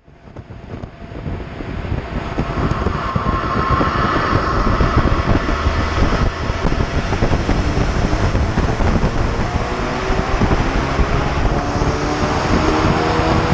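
Ford Focus RS's 2.3-litre turbocharged four-cylinder EcoBoost engine running loaded on a chassis dyno, heard from the open engine bay, with dense engine and air noise. The sound fades in over the first two seconds, and from about eleven seconds in the engine note climbs steadily as the revs rise through a power run.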